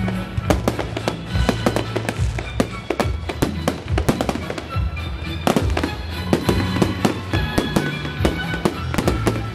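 Fireworks salute going off in quick succession: many sharp bangs and crackles, with music playing underneath.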